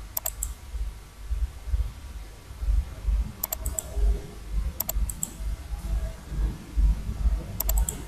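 Computer mouse clicking in four quick groups of two or three clicks each, as wires are placed in a circuit-drawing program, over a low, uneven rumble.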